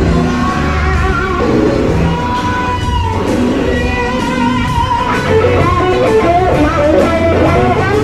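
Electric blues-rock band playing: a lead electric guitar over bass, with a run of quick bent notes in the second half.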